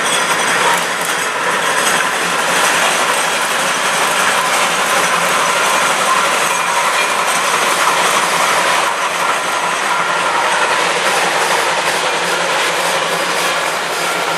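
Climax geared steam locomotive working past with its train, its exhaust and geared drive making a steady mechanical clatter, with the coaches rolling by on the rails near the end.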